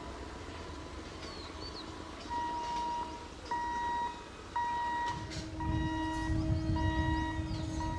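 Electric multiple-unit local train approaching, its rumble growing louder from about five and a half seconds in, with a steady low hum. Over it, from about two seconds in, a high electronic beep repeats about once a second.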